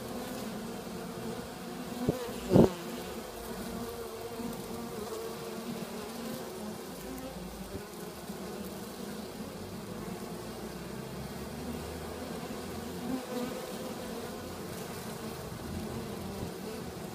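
Honeybees buzzing steadily at a top-bar hive's entrance hole: a continuous hum of many wings. A short loud knock comes about two and a half seconds in, just after a smaller one, and there is a faint bump later on.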